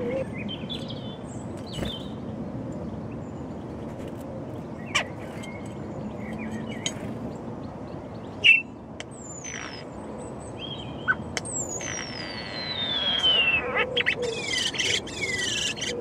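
Common starling singing close by: a long falling whistle, then a burst of chattering, with scattered bird calls and a few sharp knocks on the windowsill before it.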